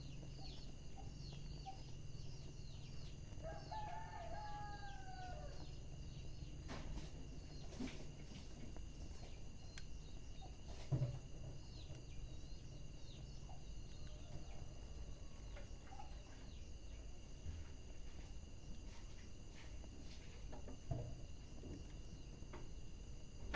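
Wood fire crackling, with scattered sharp pops over a low steady rumble; the loudest pop comes about eleven seconds in. About three and a half seconds in, an animal call lasting about two seconds rises and then falls.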